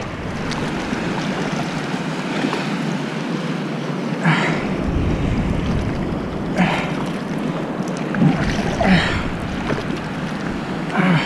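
Wind on the microphone and water washing around a fishing paddleboard on open ocean, a steady rushing noise, with several short sharp sounds a second or two apart.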